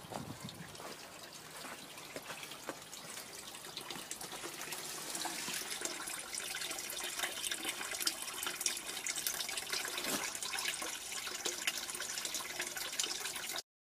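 A thin stream of water pouring from a metal pipe into a log-lined basin, splashing steadily. It grows louder over the first few seconds and cuts off suddenly near the end.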